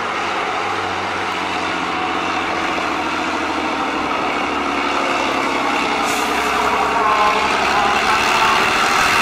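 Diesel engine of a 6x6 off-road trial truck pulling hard under heavy throttle as it ploughs through deep muddy water, with the rush and splash of water thrown up by the wheels. It gets louder over the last few seconds as the truck comes closer.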